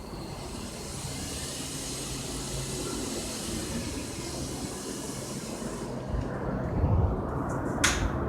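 Steady rushing noise of a passing vehicle that fades out about six seconds in, then a single sharp click near the end.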